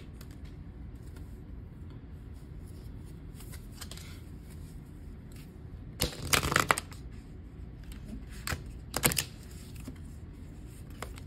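A deck of tarot cards being shuffled by hand, heard as brief bursts of rustling and flicking, loudest about six seconds in and again near nine seconds, over a faint steady hum.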